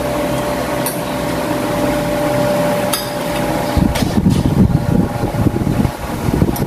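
A steady mechanical hum that turns into a louder, uneven low rumble about four seconds in. Two light clinks of a spoon or fork on a plate come before it.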